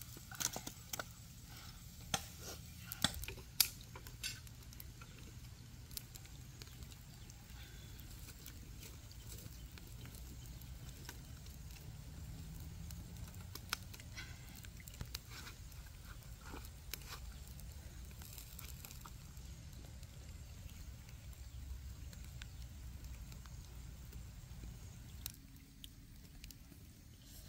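Open wood fire crackling under a spit-roasting crocodile, with scattered sharp pops. A few louder clicks come in the first few seconds, over a low steady rumble.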